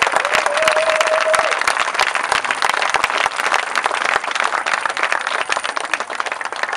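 Audience applauding, dense clapping with a held whistle about half a second in.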